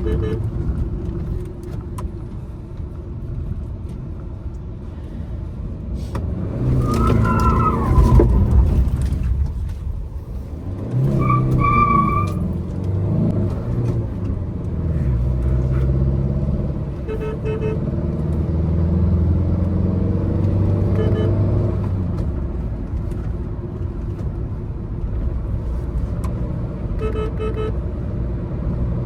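Tata Nexon's 1.5-litre turbo diesel engine pulling up a winding hill road, its pitch and loudness rising and falling as it accelerates and eases off. A brief horn-like high tone cuts in about twelve seconds in.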